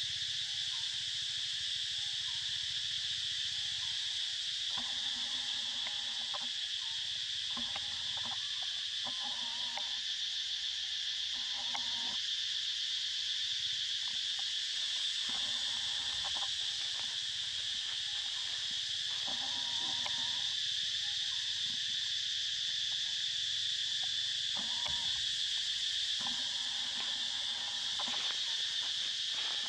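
A steady, high-pitched drone of insects, unchanging throughout, with short, irregular lower calls coming and going under it.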